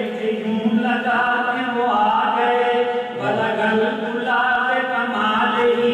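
A man singing a naat, an Urdu devotional poem in praise of the Prophet, in long drawn-out melodic phrases with held notes.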